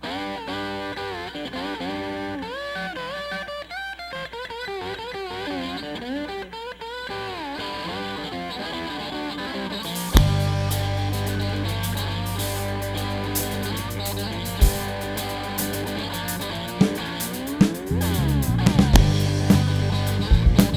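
Live blues-rock band playing an original song: an electric guitar plays the intro alone with bent, gliding notes. About ten seconds in, bass and drums come in and the full band plays on.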